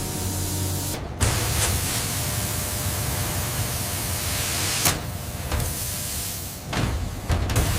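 A steady hissing rush, like spray or venting steam, broken by a few sharp metallic clicks and knocks.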